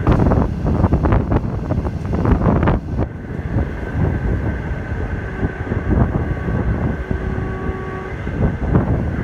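Conventional 'green-skin' passenger train coach running at speed, heard at its open window: a steady rumble of wheels on rail with wind rushing past the microphone. A run of sharp knocks comes in the first three seconds.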